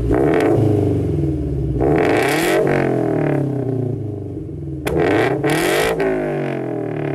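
Scion FR-S flat-four engine revved repeatedly through a catless, nearly straight-piped exhaust with a pop-and-flame tune. The revs climb and drop several times, with sharp pops from the exhaust, the loudest crack about five seconds in.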